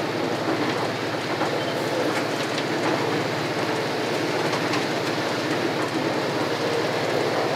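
Steady running noise of a train at about 120 km/h, heard from inside the driver's cab, with a few faint clicks from the wheels on the track.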